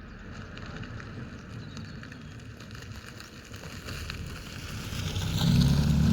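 Mazda6 2.0 Skyactiv-G four-cylinder engine with a modified intake, getting steadily louder and loudest about five and a half seconds in, with wind rumbling on the microphone.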